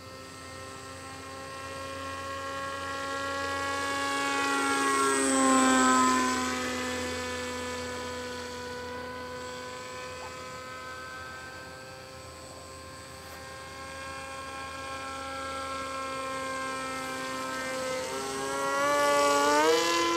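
Motor and propeller of a radio-controlled foam model airplane whining steadily in flight. It gets louder and drops in pitch as it passes close about five to six seconds in. Near the end it revs up sharply, its pitch climbing in steps.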